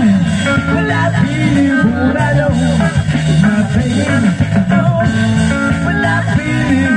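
Live band playing a song, with electric guitar and a singing voice, loud and continuous.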